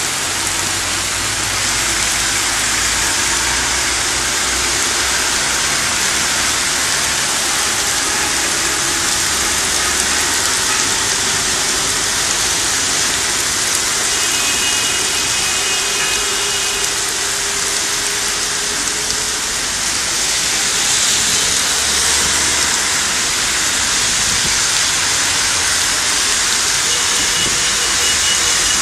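Heavy rain pouring steadily onto a flooded road and paving, a dense even hiss, with passing cars' tyres swishing through the standing water.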